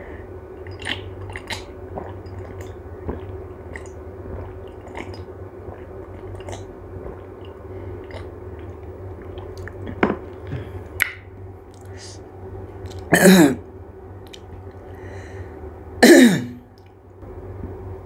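Close-up chewing and crunching of pani puri (golgappa), with small crisp clicks over a steady low hum. Near the end come two loud, short throat-clearing coughs with a falling pitch, about three seconds apart, from a mouth burning from the spicy, sour pani.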